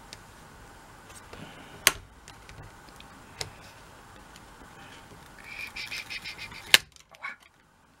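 Scattered sharp clicks and light knocks from objects being handled on a craft desk, with a short run of quick, ringing ticks near the end and the loudest click just after it.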